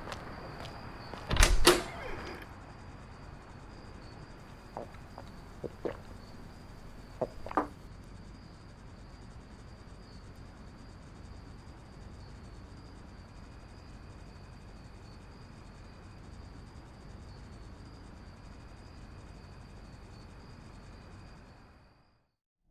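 Two loud thuds at a wooden door about a second and a half in, followed by a few faint clicks, then a quiet room with a faint steady high-pitched whine.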